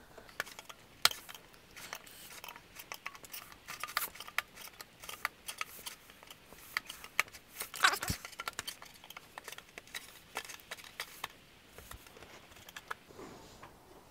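Steel chisel prising the lid off a metal body filler tin, worked around the rim: a run of sharp metallic clicks and scrapes, the loudest about a second in and again about eight seconds in.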